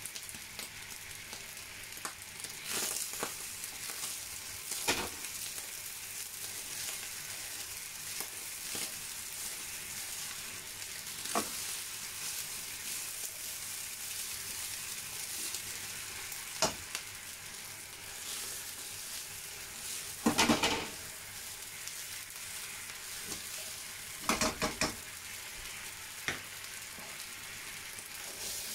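Rice frying in a pan with a steady sizzle while liquid cooks off, broken by occasional knocks and scrapes of a utensil against the pan as the rice is stirred. The loudest knocks come in a short cluster about two-thirds of the way through and again a few seconds later.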